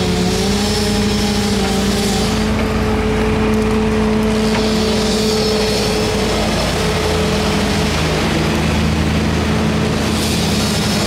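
A truck engine running steadily: a constant drone whose pitch shifts slightly about two seconds in and again past the middle.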